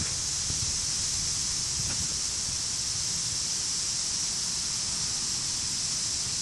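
Steady high hiss over a low, fluttering rumble of wind on the microphone.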